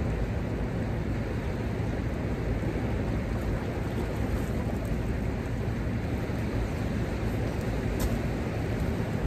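Steady, deep rushing of churning river water in the outflow pool below a dam, even and unbroken throughout.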